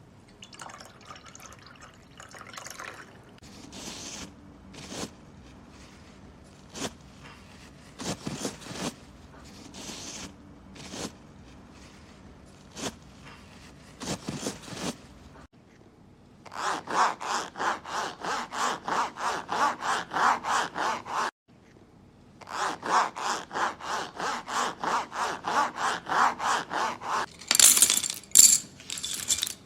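Hand saw cutting through wood: a few slow, scattered strokes at first, then two long runs of quick, even back-and-forth strokes with a short break between them, ending in a few sharp clicks.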